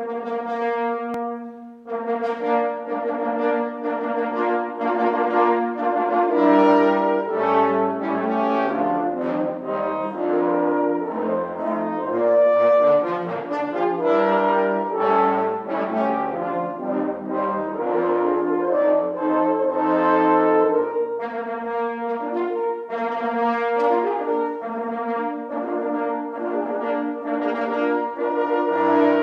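Six French horns playing together in several parts. It opens on a held note that breaks off briefly about two seconds in, and lower notes join after about six seconds.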